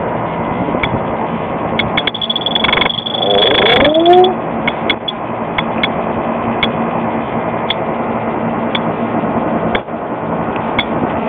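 Electronic refrigerant leak detector ticking about once a second while probing for a leak, with a steady high beep from about two seconds in to nearly four seconds, over a steady rushing noise. A short rising whine near four seconds in is the loudest moment.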